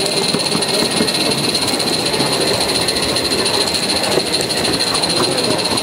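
A 16mm scale garden railway locomotive running along its track, heard from a camera riding on it. The sound is a steady rumble of wheels on rail with a constant high hiss.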